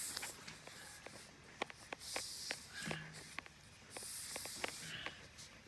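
A plastic water pipe rubbing and sliding as it is fed by hand down a borehole, with repeated bursts of hiss about once a second and scattered sharp clicks.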